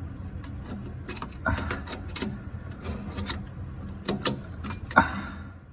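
Metal hand tools and tap fittings clicking and knocking in an irregular series of sharp clicks, with a louder knock about five seconds in.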